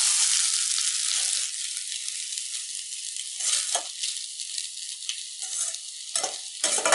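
Cooked rice stir-frying in oil in a stainless-steel kadai, sizzling steadily while it is stirred with a perforated metal spatula. The sizzle is strongest in the first second, and the spatula scrapes the pan a few times later on.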